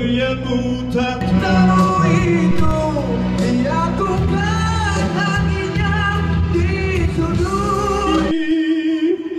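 A man singing into a microphone over a backing track. About eight seconds in the backing music cuts out, leaving his voice alone.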